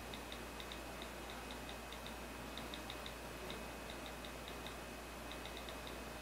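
Typing on an iPhone touchscreen: quick, irregular keyboard clicks, several a second with short pauses, over a faint steady hiss.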